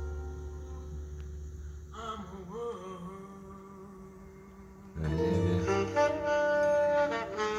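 Recorded music played back through a DIY single-ended tube amplifier with a Soviet 6N3C output tube and an oval Telefunken full-range speaker: a melody of held notes over a bass line, getting louder about five seconds in.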